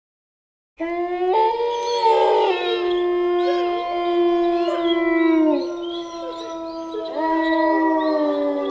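Wolves howling in chorus: several long, overlapping howls begin suddenly about a second in. Each holds its pitch, then slides down at the end, and a fresh howl rises in near the end.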